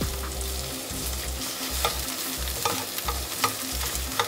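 Sliced meat and onion sizzling in a nonstick frying pan over high heat while a spatula stirs them, with a few clicks of the spatula against the pan.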